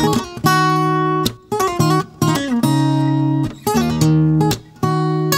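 Solo acoustic guitar playing an instrumental piece: full chords struck and left to ring for about a second each, linked by short runs of single notes, with a couple of brief stops between phrases.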